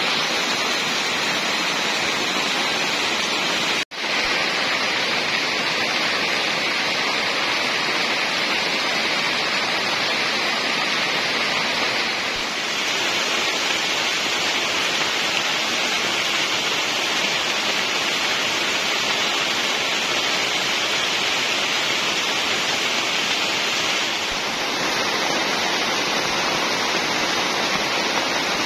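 Heavy rain pouring steadily, with a momentary gap about four seconds in.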